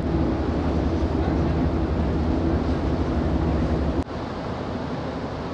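Ferry's engine drone: a steady low hum with several pitched lines over a rush of noise, broken off by a click about four seconds in, after which a quieter rush without the hum carries on.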